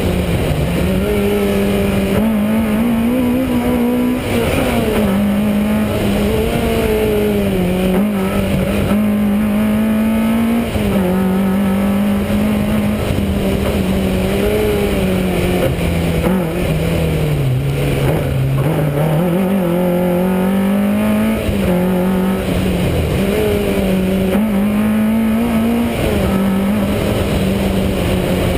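Rally car's engine heard from inside the car, pulling hard at high revs. Its note rises and falls with throttle and gear changes, sagging lowest about two-thirds of the way through before climbing again.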